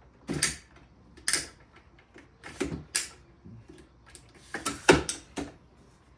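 Sharp clicks and clacks of a folding dolly cart's pull handle being adjusted and handled, coming singly in the first three seconds and then in a quick cluster about five seconds in.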